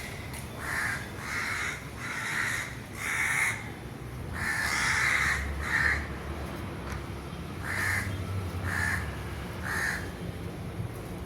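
Crows cawing: a string of about nine harsh caws in two bouts with a short pause between, one near the middle drawn out longer.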